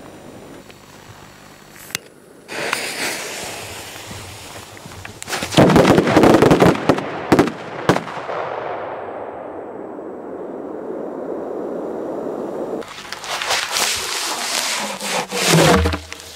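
Large 200 mm (8-inch) firework shells bursting: a cluster of loud bangs and crackles about five to seven seconds in, followed by a long echoing rumble that fades away. More crackling and sharp cracks come near the end.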